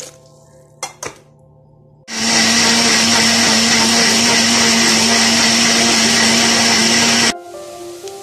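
Electric mixer grinder running at full speed, grinding roasted spices, coconut and water into a wet paste; it starts abruptly about two seconds in, runs steadily with a constant hum for about five seconds and cuts off suddenly. Before it, a brief splash of poured water and two sharp clicks.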